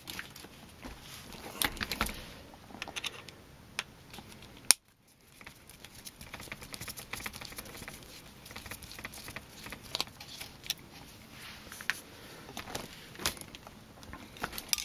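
Scattered light clicks and taps of a plastic RC crawler chassis being handled and turned over on a tabletop while its small screws are worked with a hex driver. The sound cuts out briefly about five seconds in.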